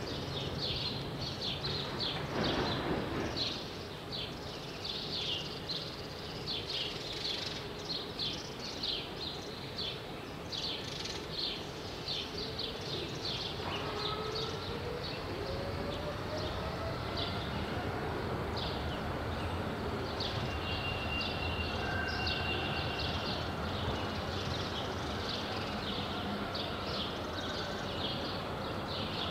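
A tram's electric traction motors whining up in pitch as it pulls away, over a low steady rumble, with small birds chirping throughout.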